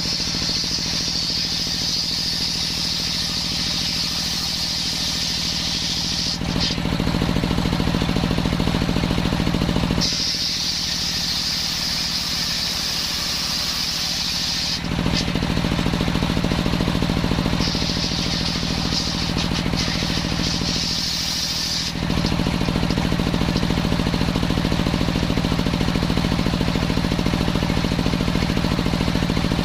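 Circular saw cutting young coconut-palm wood: a loud high hiss of the blade in the wood comes in three cuts, each a few seconds long with short breaks between, over the steady hum of the engine that drives the saw. For the last third the saw runs without cutting.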